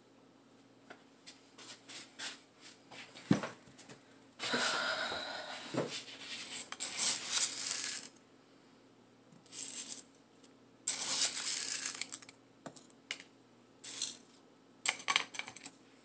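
Top dressing being handled and added to a freshly repotted houseplant: irregular bursts of rustling and small hard clattering, with scattered clicks in between.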